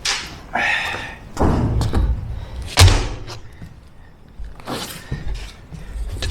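Interlocking floor tiles being handled and pressed together on a floor, a series of separate thumps and knocks, the loudest about three seconds in.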